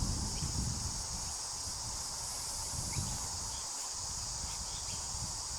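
Steady, high-pitched chorus of insects droning without a break, with a low rumble underneath.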